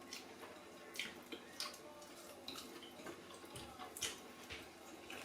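Faint eating sounds: a few scattered soft clicks and smacks of mouths and food, the strongest about a second and about four seconds in.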